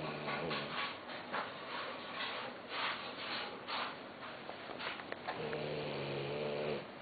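Sleeping dog snoring: a long, low, rumbling pitched snore at the start and another about five and a half seconds in, with a run of short noisy breaths between them.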